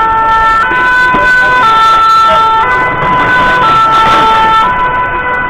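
French two-tone emergency siren of a red fire-brigade rescue van, alternating steadily between a high and a low note, each held about a second.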